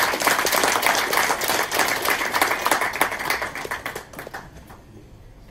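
Audience applauding, many hands clapping, dying away about four seconds in.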